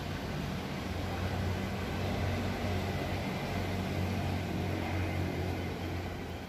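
A motor engine running with a steady low hum, growing a little louder in the middle and easing off near the end.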